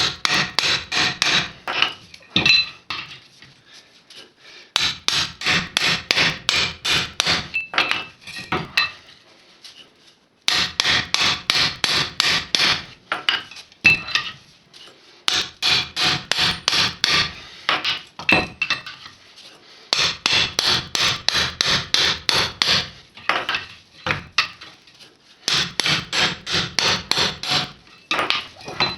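Hammer driving a chisel against the bearing on a GAZ-24 Volga rear axle half-shaft, knocking the bearing off its seat. Runs of quick, light metal blows, about four a second, come in bursts of a few seconds with short pauses between.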